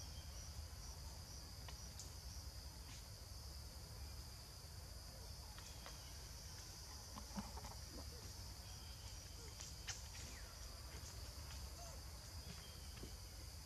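Forest insects buzzing in a faint, steady high-pitched drone, with a few short faint chirps and clicks over a low background rumble.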